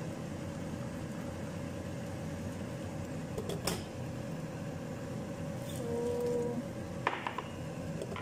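A pan of rice and fried noodles cooking on the stove with boiling water just added: a steady hiss, with a sharp clink about three and a half seconds in, a short low hum near six seconds, and a brief clatter about seven seconds in.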